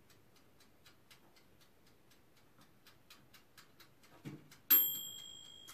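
A toaster oven's wind-up dial timer ticking fast and evenly, about five ticks a second; near the end, after a small knock, its bell dings once and rings on as it fades, the signal that the timer has run out.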